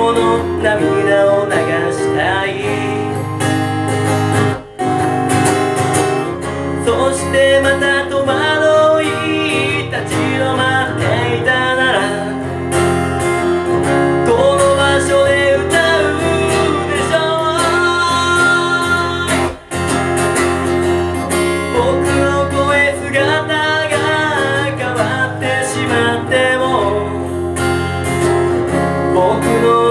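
Live acoustic performance: an acoustic guitar strummed while a man sings. The sound drops out for an instant twice, about five and twenty seconds in.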